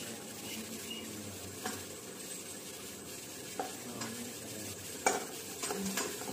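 Chopped tomatoes being dropped by hand into a pot of cooking sambhar masala, over a steady hiss from the pot. A few light clicks and taps of steel come and go.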